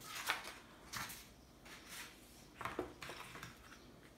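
Paper prints and card mount board being handled and slid over a wooden tabletop: about four short rustles and scrapes.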